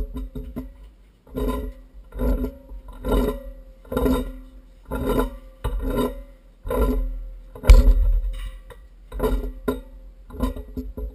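Background music: an acoustic guitar strummed in a steady rhythm, about one strum a second.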